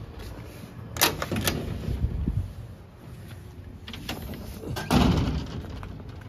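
Metal gate with a rim lock: sharp latch clicks about a second in, then a louder metallic clank about five seconds in.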